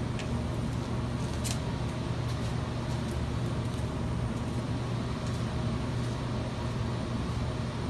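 Steady low electrical hum and fan noise from shop machinery running, with a few faint clicks from parts being handled.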